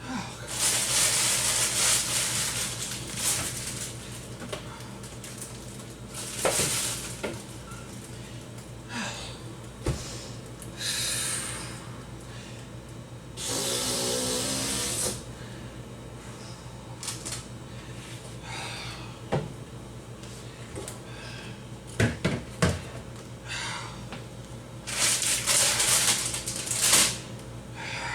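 Refrigerator being cleaned out by hand: several noisy bursts of scrubbing, each a second or two long, with scattered knocks and clatters as shelves and containers are handled, over a steady low hum.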